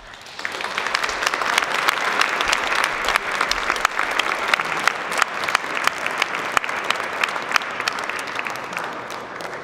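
Audience applauding: many people clapping, starting suddenly and slowly dying down near the end.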